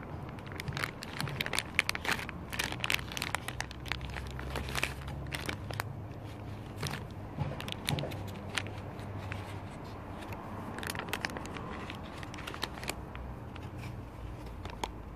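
Plastic bag crinkling as it is handled and pressed into a foam to-go box, a string of small irregular crackles.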